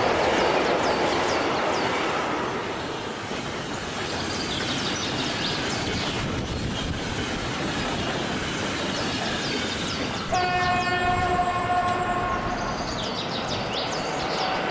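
Train sound effect: a train running on rails with a steady rumble and repeated high wheel squeals. About ten seconds in, a train horn sounds once for about two and a half seconds.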